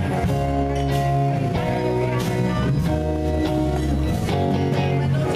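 Live band playing a song: electric guitars and keyboard holding chords over a drum kit, with a few cymbal and drum hits.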